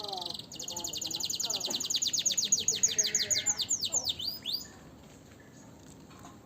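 A young songbird singing a fast trill of high, clear notes, about nine a second, growing louder and breaking into a few sweeping notes before it stops about four and a half seconds in.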